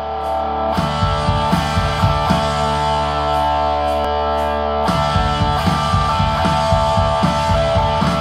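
Electric guitar, a Gibson SG Standard through a Vox AC4 TV amplifier, playing a distorted rock chord riff: a chord rings out, then picked chord strokes fall in a steady rhythm, with a chord change about five seconds in.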